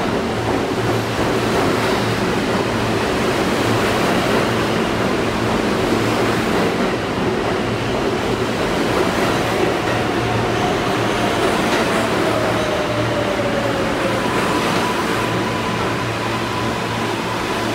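R143 subway train running, a steady loud rush and rumble of wheels on rail. About halfway through, a whining tone slowly falls in pitch, and near the end a higher steady whine comes in.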